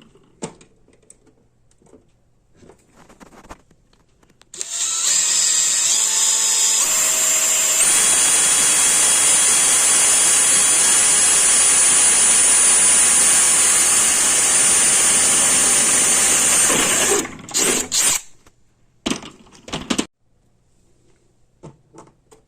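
A power drill boring a 1/4-inch hole through the metal of a tool cart: a few light handling clicks, then about twelve seconds of steady drilling with a high motor whine that steps up in pitch twice soon after starting. It stops about 17 seconds in, followed by two short bursts of the drill.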